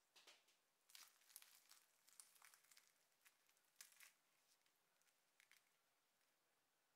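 Faint crackling and crunching of a fried samosa's crisp pastry shell cracking and tearing as hands pull it apart. The sharp crackles come thick and fast for the first four seconds, with a few more about five and a half seconds in.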